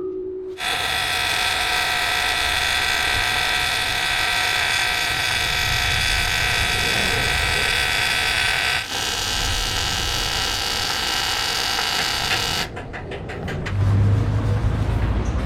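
Welding arc buzzing and hissing steadily as a new piece is welded into the cut-out section of a cracked aluminium alloy wheel. It starts and stops abruptly, with a brief break about nine seconds in, and runs for about twelve seconds.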